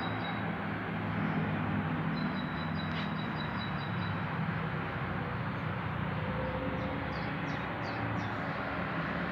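A heavy vehicle's engine running steadily with a low rumble. Birds chirp over it: a rapid high trill twice in the first half and a few short chirps near the end.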